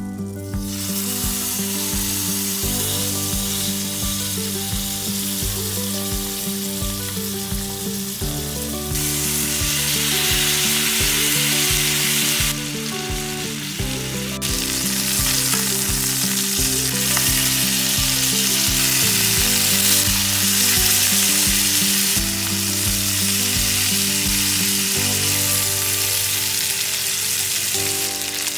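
Chicken pieces frying in butter in a cast iron skillet: a loud, steady sizzle that starts suddenly about half a second in and jumps in level several times. Under it runs background music with a steady beat.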